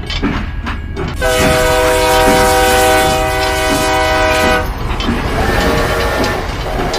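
Train sound: a horn blows for about three seconds, starting about a second in, then a fainter horn tone comes in near the end, over a regular clickety-clack of wheels running over rail joints.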